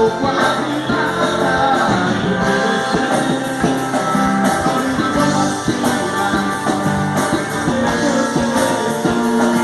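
Music: an instrumental passage with plucked guitar over a steady rhythm.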